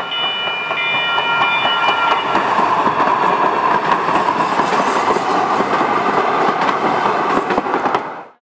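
A Sacramento light rail train passing close by: a loud steady rush of wheels on rails with many quick clicks from the track. Several high steady tones sound over the first two seconds, and the noise drops away sharply near the end.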